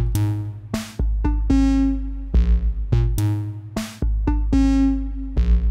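Analog synthesizer, sequenced by the Make Noise 0-CTRL, playing a looping step sequence of pitched notes of uneven lengths, with some steps held longer as timed rests. Drum-machine hits and low thumps sound between the notes.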